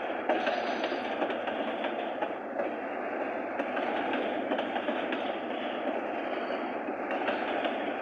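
Freight train cars rolling past on the track: a steady rumble with wheel clatter over the rail joints.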